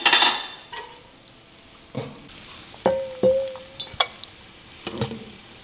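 Blanched youcai greens being scooped out of boiling water with a metal slotted spoon into a stainless steel colander: a wet splash at the start, then scattered clinks of the spoon against the steel, one of them ringing on for about a second.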